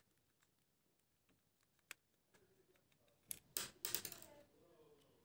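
Small screwdriver faintly ticking as it turns a tiny screw in the plastic battery cap of a cheap red dot sight, then a short cluster of plastic clacks and rattles about three and a half seconds in as the cap comes off.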